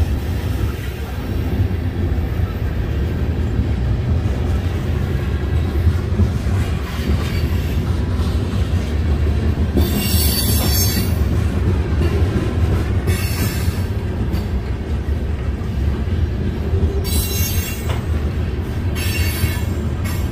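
Freight train rolling past with a steady low rumble, broken by short bursts of high-pitched wheel squeal about halfway through and several times near the end.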